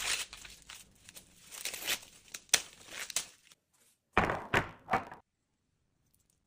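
Husks being stripped by hand from an ear of fresh corn: crackling, rustling tears with sharp snaps, then three louder rips about four seconds in.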